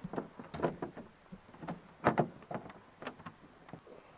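Clear plastic canopy being fitted onto the fuselage of a model jet: a string of irregular knocks and clicks as it is pressed into place, the loudest about two seconds in.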